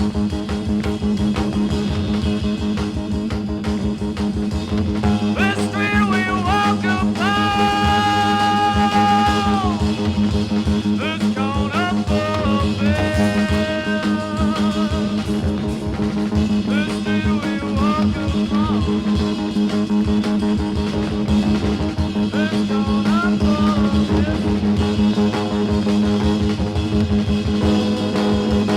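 Late-1970s punk rock song played from a vinyl record: keyboard, bass guitar and drums, with a male voice singing several drawn-out phrases over the music.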